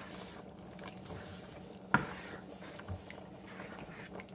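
A spoon stirring thick creamy alfredo sauce with chicken in a nonstick pan, giving soft squishing, with one sharp knock about two seconds in. A steady low hum runs underneath.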